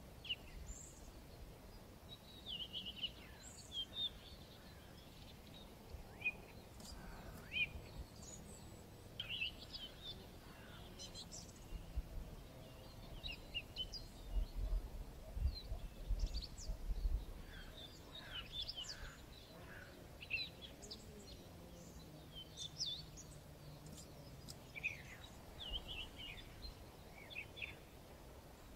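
Wild birds singing outdoors: many short chirps and trills from several birds overlapping, with a low rumble of wind on the microphone that comes in gusts and is strongest around the middle.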